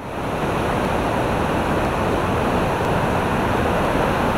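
Floodwater rushing through a swollen river: a steady, unbroken roar of churning water.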